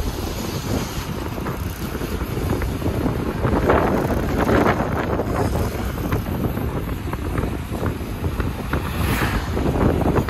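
Wind buffeting the microphone of a moving vehicle, a steady, heavy rumble with crackles over the vehicle's road noise.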